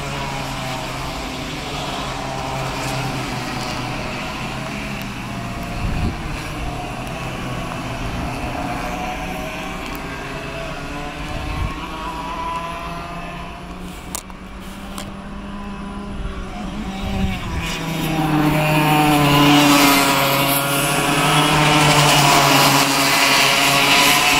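Several cadet racing karts' small two-stroke engines running at racing speed, their pitches wavering up and down as they rev through the corners. The engines get louder about three quarters of the way through as a pack of karts comes close.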